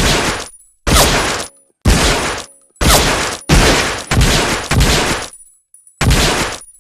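M1911A1 .45 ACP pistol firing about seven shots, roughly one a second with a longer pause before the last, each shot followed by a ringing tail.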